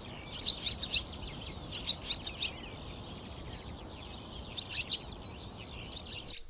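Swallows twittering: quick bursts of short, high chirps over a steady low background hiss.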